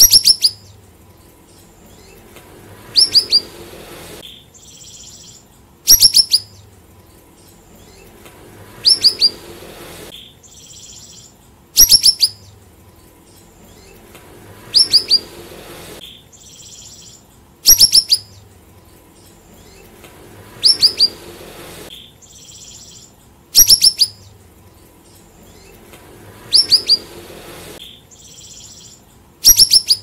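Siri-siri (cucak rawis) songbird calling: a short, loud burst of three or four quick, high, falling notes, repeated evenly about every three seconds, with a softer high note before every other burst.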